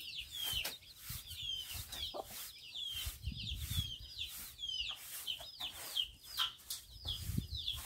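Young chicks peeping over and over, short high peeps that slide downward, several a second at times. A broom sweeps over the concrete floor of the pen underneath.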